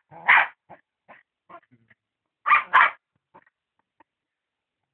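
A dog barking: one bark, then a quick pair of barks about two seconds later.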